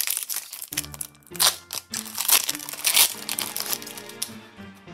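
Crinkling of a Pokémon booster pack's foil wrapper being handled and torn open, in repeated crackling bursts. Background music with sustained low notes comes in under it about a second in.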